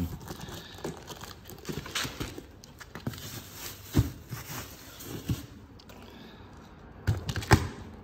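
A large cardboard box being handled and opened: scraping and crinkling of packing tape and plastic wrap, with a few knocks, the sharpest about four seconds in and another cluster near the end.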